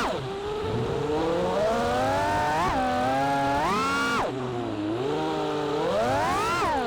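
A 6S 5-inch FPV freestyle quadcopter's brushless motors and propellers whine. The pitch swoops up and down with the throttle, with sharp rising punches about a third of the way in, just past halfway and near the end.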